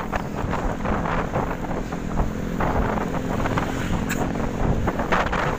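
Wind buffeting the microphone of a camera carried on a moving road bike: a steady rushing noise, with a single sharp click about four seconds in.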